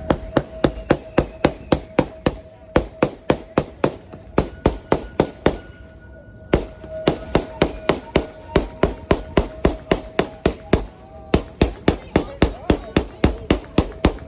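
Rapid gunfire from a scare actor's gun firing at riders on a haunted train ride: sharp shots about three or four a second, in long strings with a few short breaks, over a steady faint tone.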